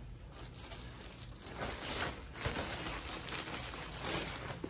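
Plastic packaging bag crinkling and rustling as it is handled, in uneven short rustles that get louder from about a second and a half in.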